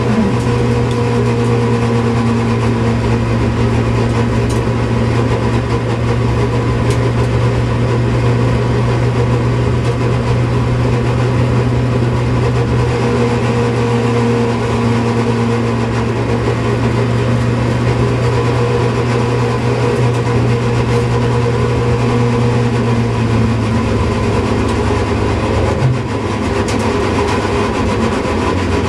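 Opel Kadett C's engine running at steady revs, heard from on board the car. Near the end there is a brief dip in level and a change in pitch.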